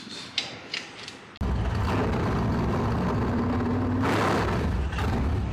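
A few light clicks and rattles, then, about a second and a half in, a loud motor-vehicle engine sound cuts in suddenly and runs at a steady level as the channel's logo intro.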